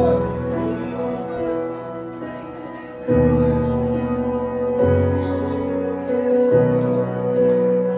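Live worship music from an electric keyboard playing held chords over a low bass, the chord changing about three times.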